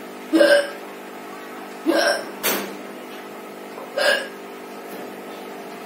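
A woman hiccuping: three short, sharp hiccups about two seconds apart, the second followed closely by a brief click.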